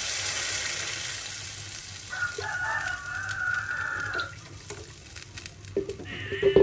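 Water pouring from a plastic jug into a hot frying pan of meatballs and carrots frying in oil: the sizzle and splashing hiss fade over the first two seconds. About two seconds in, a rooster crows once in the background, a call lasting about two seconds. A short, louder sound comes near the end.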